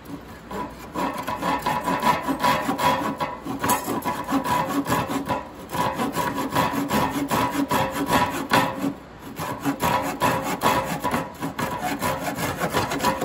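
Hand saw cutting across a thin wooden board, with fast back-and-forth strokes, each one a rasping scrape. It pauses briefly a few times, about a third of the way in, near the middle and about two-thirds of the way through.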